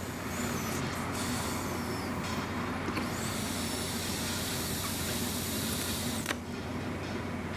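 A long drag on a cigalike e-cigarette: a steady breathy hiss that turns brighter about three seconds in and stops about six seconds in, over a low steady hum.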